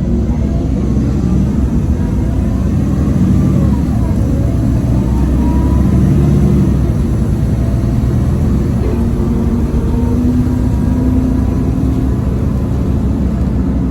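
Cabin sound of a 2010 Nova Bus LFS Articulated city bus under way: its Cummins ISL diesel runs loudly, engine pitch rising and falling with a thin turbocharger whine gliding above it.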